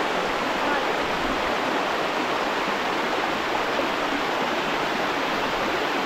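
Mountain river water running over rocky cascades: a steady, even rush that does not change.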